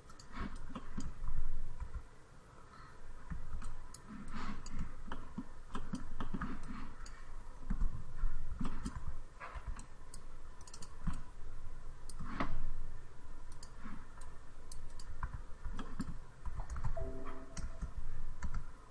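Irregular computer mouse clicks and keyboard taps, a few each second.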